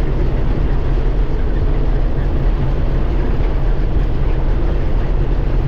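Combine harvester running steadily while harvesting wheat, a constant low mechanical drone.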